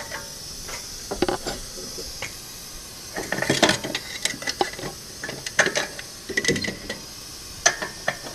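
Socket ratchet and steel tools clicking and clinking against a bolt on a car's rear suspension hub carrier. The metallic clicks come in irregular bunches over a steady hiss.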